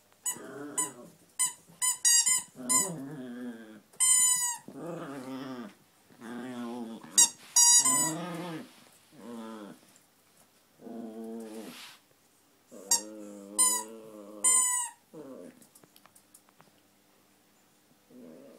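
A small dog chewing a squeaky toy: runs of short, sharp, high squeaks, some with a falling pitch, alternating with the dog's low, wavering growls.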